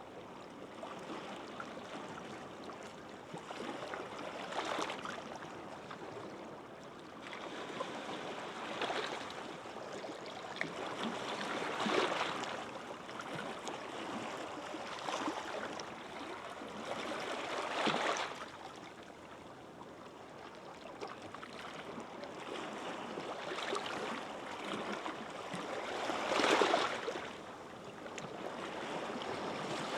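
Small sea waves breaking gently on a beach. Each wash swells and fades every few seconds, and one near the end is loudest.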